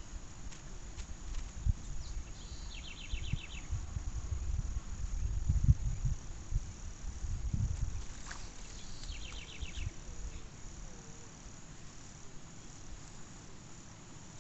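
Insects calling in a grassy field: a steady high buzz, with a short rapid pulsed trill that comes twice, about six seconds apart. A low rumble swells through the middle.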